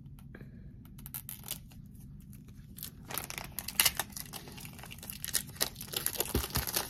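A boxed tarot deck being unwrapped by hand: its packaging torn and crinkled, with scattered small ticks at first and busier crackling from about three seconds in.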